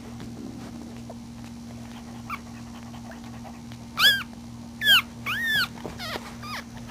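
Newborn puppy squealing: three short high-pitched squeals, each rising then falling in pitch, about four and five seconds in, after a faint squeak earlier, over a steady low hum.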